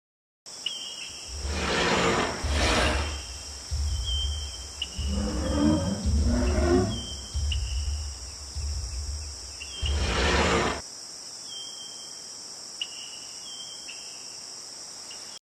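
Recorded dinosaur roars and growls with a deep rumble, three loud roars and a growling stretch between them, over a steady insect-like chirping and hiss. The roaring stops a few seconds before the end while the chirping goes on.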